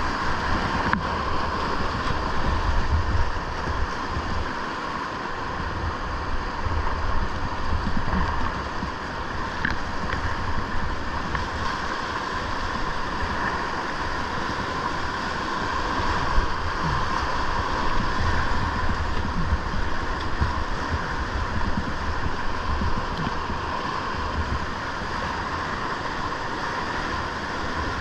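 Steady rush of whitewater rapids, with a heavy low rumble of wind and water buffeting the microphone.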